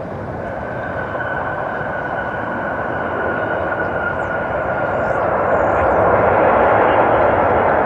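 Jet engines of a Boeing 737 on landing approach, growing steadily louder as it nears, with a high whine that drifts slightly lower in pitch.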